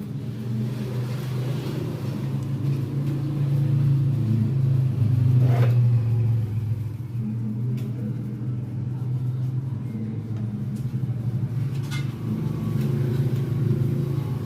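Low engine rumble that swells and eases in loudness, with a few sharp clicks through the middle and near the end.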